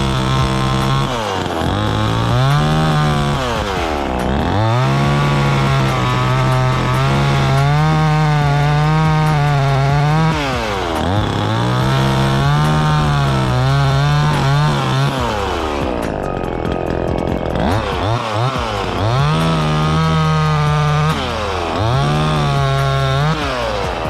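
Chainsaw cutting through black maple limbs: several long runs at a steady high speed, the engine pitch wavering under load, dropping back briefly between runs and for a longer spell about two-thirds of the way through.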